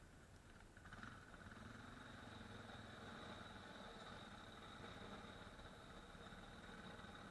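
ATV engine running, faint and steady, growing a little louder about a second in.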